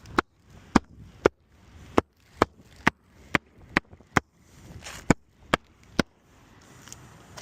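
A run of about a dozen sharp strikes, roughly two a second, from hand-tool work on a shingle roof, with faint scraping between some blows.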